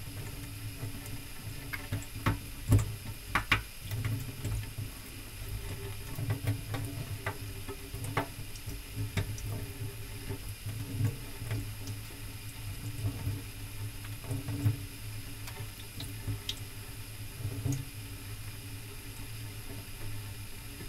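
Thin stream of tap water running into a stainless-steel kitchen sink, with scattered splashes and small knocks as a kitten paws at the stream. The sharpest splashes come between about two and four seconds in.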